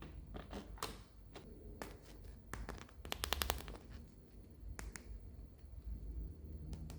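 Toys or their packaging being handled: scattered sharp clicks and taps, with a quick rattling run of about a dozen clicks a little after three seconds in.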